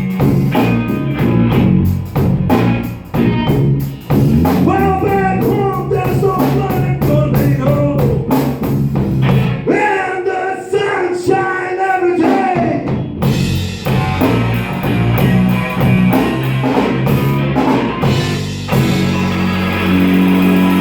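Slow blues played by a band: a lead guitar line with sliding, bent notes over bass and drums.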